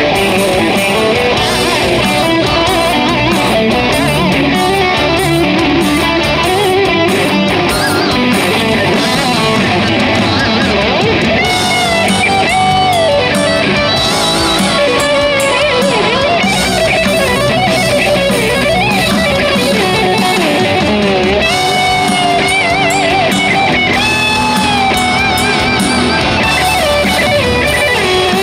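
Electric guitar played through an amplifier: a heavy metal lead of fast runs, with bent notes about twelve seconds in and again near twenty-two seconds.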